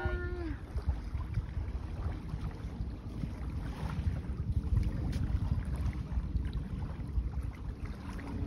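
Wind buffeting a phone microphone: an uneven low rumble that rises and falls, with a few faint clicks.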